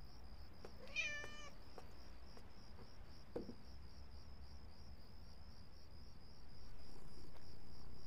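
A cat meows once, briefly, about a second in, over steady high cricket chirping.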